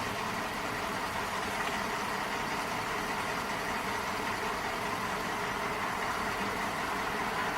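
A vehicle engine running steadily, an even mechanical hum with no changes.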